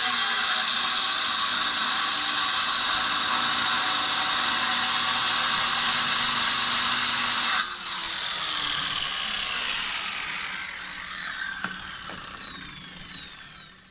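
Power saw cutting into fire brick, running loud and steady, then let off about seven and a half seconds in; the blade winds down with a falling whine that fades away by the end.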